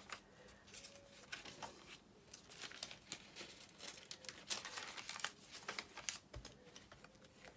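Pages of a handmade wire-bound journal of tea-dyed paper being turned by hand: faint, repeated paper rustling and crinkling.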